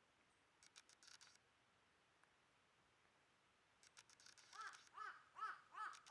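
A crow cawing: a quick run of about four caws near the end, after a few faint clicks about a second in.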